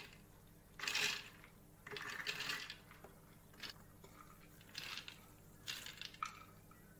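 Soaked chana dal (split chickpeas) tipped from a plate into a plastic mixer-grinder jar, the lentils spilling and pattering onto the jar bottom in a series of short bursts.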